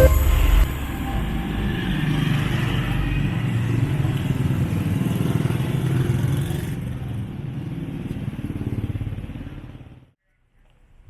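Street traffic noise with motorbikes and other vehicles running, a steady rumble that fades away and cuts off near the end.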